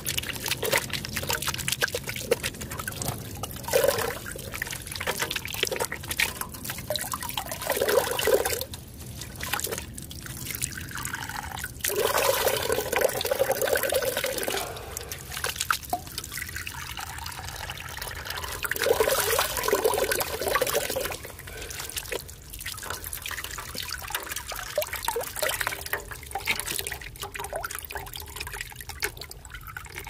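Water trickling, pouring and dripping in irregular spells, with small clicks and knocks throughout.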